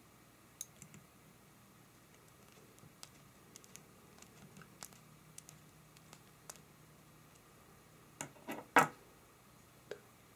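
Scattered light clicks and ticks of a screwdriver driving small screws into a hard-disk stabilizer's steel mounting plates. Near the end comes a short clatter of a few louder metal knocks, the last the loudest, as the assembly is handled.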